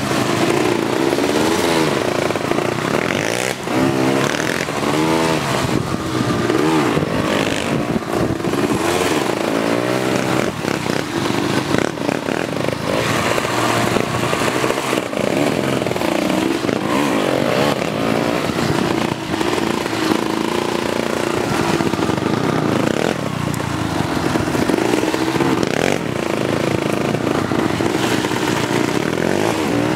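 ATV (four-wheeler) engine running under constantly changing throttle, its pitch rising and falling over and over, with scattered rattles and knocks from the machine over rough ground.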